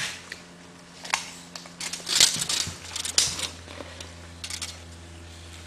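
A few light clicks and short scraping noises, like small objects being handled, over a steady low hum.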